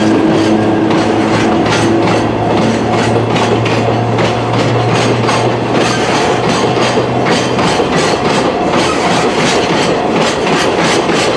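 Train passing over a railway level crossing, its wheels clacking in a steady rhythm over the rail joints, the clicks coming faster toward the end. A steady low hum runs under it and fades out about seven seconds in.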